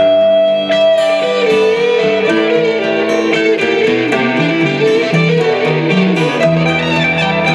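Guitar-led instrumental music played back through a BRZHiFi class-D amplifier and speakers, a melody moving over held notes at a steady, loud level.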